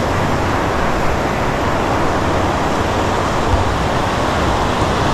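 Steady rushing noise of ocean waves breaking on a sandy beach, with a constant low rumble.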